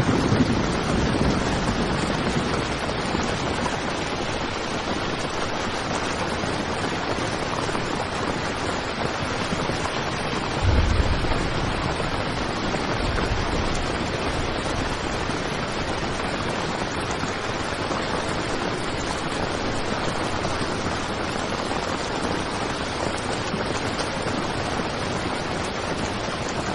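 Heavy rain falling on a tent, a steady dense hiss with no let-up. A short low rumble swells up about eleven seconds in.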